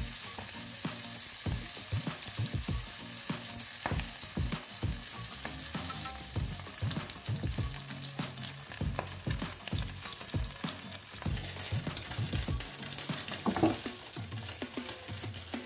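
Salmon steak sizzling steadily in hot oil in a frying pan, cooked through and ready to come off the heat. A wooden spatula knocks and scrapes against the pan again and again, with one louder knock near the end.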